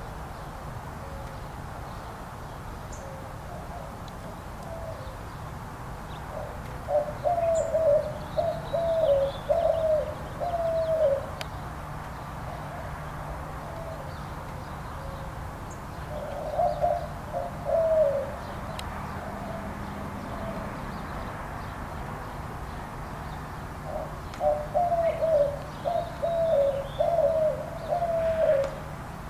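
A white-winged dove singing its cooing song in three bouts: the first and last are four or five coos in a row, the middle one shorter, each coo rising and then dropping at the end.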